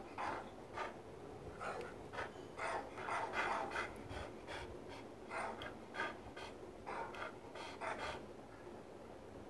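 Dog huffing and panting right at the microphone: quick, irregular runs of short breathy puffs. The dog is agitated, scared by the dog sounds it has just heard.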